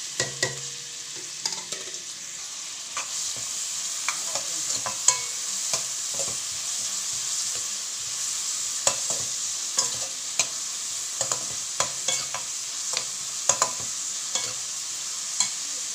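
Chopped onions sizzling in hot coconut oil in a metal kadai, with a steady hiss. A metal spoon stirring them clinks and scrapes against the pan at irregular moments.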